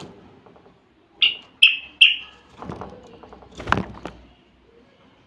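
Common bulbul giving three short, loud whistled notes in quick succession, followed by rustling and a sharp knock as the bird moves up close in its wire cage.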